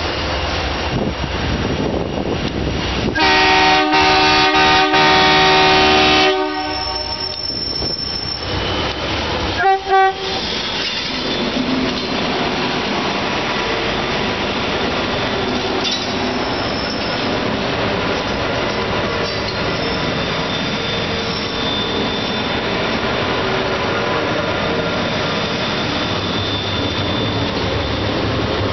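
SCT freight train's locomotive horn sounding one long blast of about three seconds, then two short toots about ten seconds in. After that the train rolls past with a steady rumble and wheels squealing.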